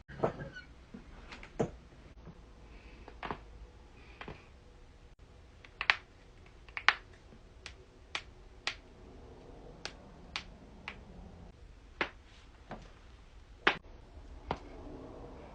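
Human joints cracking: about fifteen sharp, separate pops spaced unevenly, some louder than others.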